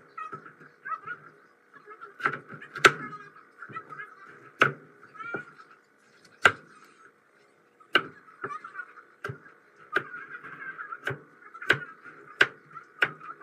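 Kitchen knife slicing through a boiled bamboo shoot and knocking on a plastic cutting board, about a dozen sharp chops at irregular intervals of roughly a second, over a steady faint background sound.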